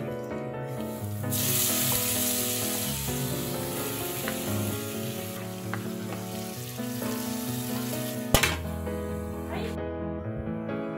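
Chopped carrots sizzling in hot oil with onions in an aluminium pot as they are tipped in and stirred; the sizzling starts about a second in and stops near the end, with one sharp knock shortly before it stops. Background music with steady notes plays underneath.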